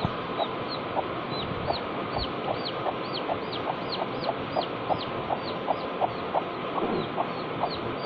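Chick peeping in a steady run of short falling notes, about three a second, with short low clucks from the hen between them. The run pauses briefly near six seconds, and a lower call comes about seven seconds in.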